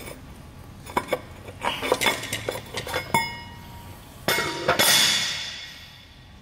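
Steel puller plate and bolts knocking and clinking against a steel gear coupling hub, with one ringing clank near three seconds. About four seconds in, the heavy steel plate is lifted away and set down with a loud scrape that fades over about two seconds.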